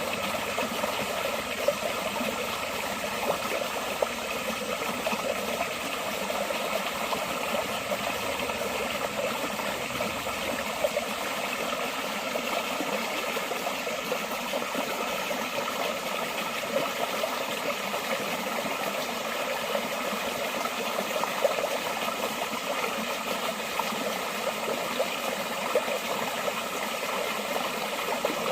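Forest stream flowing steadily over rocks, an even rushing and babbling of water with a few brief louder spikes.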